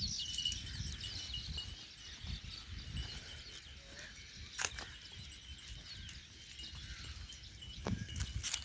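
Outdoor rural ambience: a low rumble throughout, faint bird chirps in the first second or two, and two sharp clicks, one about halfway through and one near the end.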